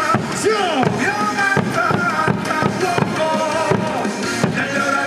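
Loud cheer music played over the stadium's loudspeakers: a melody over a steady drum beat.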